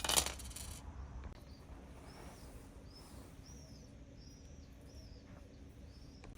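A short, loud scraping noise right at the start, then a bird chirping faintly again and again over a low steady hum.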